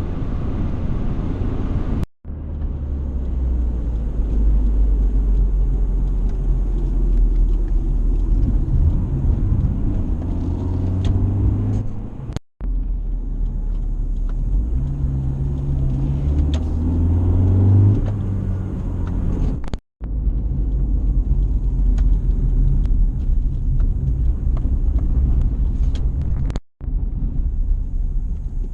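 A car's low engine and road rumble, the engine note rising a couple of times, broken by several abrupt cuts.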